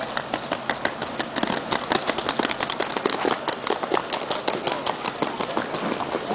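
Wheeled suitcases and footsteps on a paved platform: a dense run of quick, irregular clicks and clatters as luggage wheels roll over the paving.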